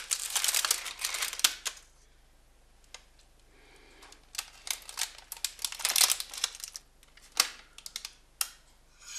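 Clicks and rattles of a metal springform ring being opened and lifted off a cake, with baking paper rustling. After a short lull, a knife cuts through the crisp potato base in a run of crackling scrapes, and a cake server gives a few single knocks near the end.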